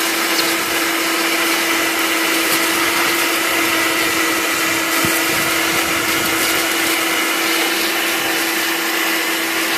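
Vacuum cleaner running steadily with a constant hum, sucking up broken window glass, with a few faint clicks.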